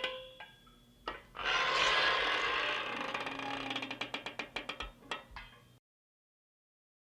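Screen door creaking on its hinges: a sharp click about a second in, then a long creak, then a quick run of rattling clicks that dies away.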